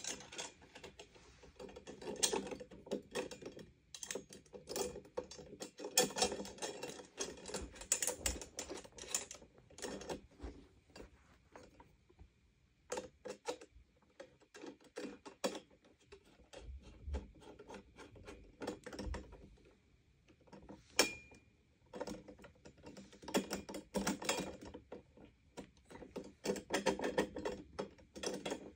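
Rapid clicking and rattling of plastic and metal parts, in several bursts with short pauses, as the chrome handle tube is worked into the base of a Sanitaire SL635B upright vacuum by hand.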